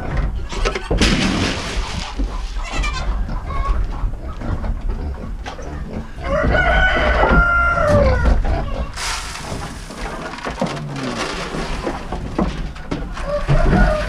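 Chickens clucking in a coop. About six seconds in, a rooster crows once, a call of about two seconds that rises and falls.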